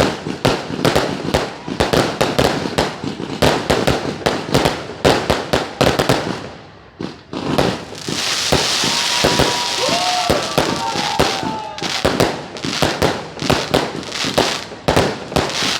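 Fireworks going off: a rapid, dense run of firecracker cracks and bangs that eases off about six seconds in. A hissing spray with several short whistles that rise and fall follows, and then the rapid cracking starts again.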